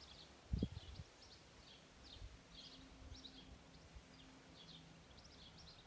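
Faint small-bird chirping, short high calls repeating in quick runs, with a brief low thump about half a second in.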